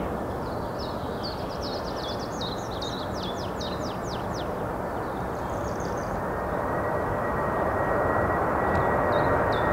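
A four-engined Boeing 747-400 freighter on final approach, its jet engine noise growing steadily louder as it nears, with a thin steady whine entering about halfway. A songbird sings quick, descending chirps over it for the first few seconds and again near the end.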